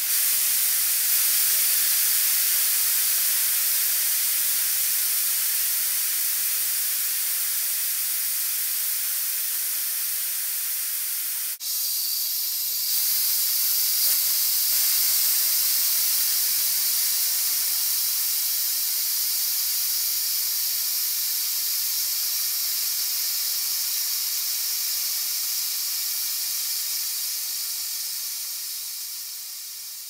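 Compressed air escaping in a long, steady high hiss, broken for an instant about twelve seconds in and tapering off near the end.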